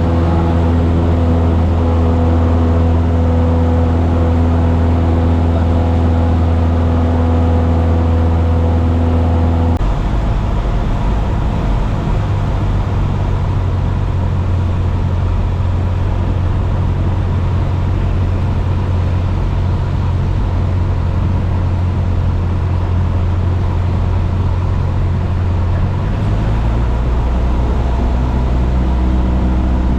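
Cessna 172's piston engine and propeller running steadily in the cockpit during a touch-and-go landing. The engine note changes about ten seconds in and again near the end.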